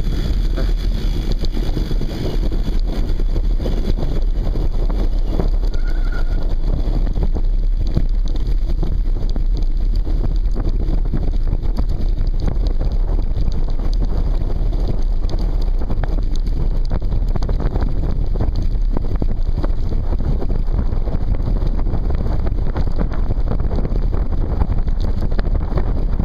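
Loud wind buffeting the microphone of a handlebar-mounted camera on a mountain bike riding a dirt track, with constant small knocks and rattles from the bike jolting over the rough ground.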